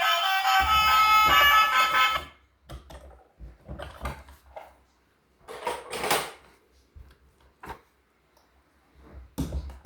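A tune cuts off about two seconds in. Then come scattered light clicks, knocks and rustles of small objects being handled, with short quiet gaps between them.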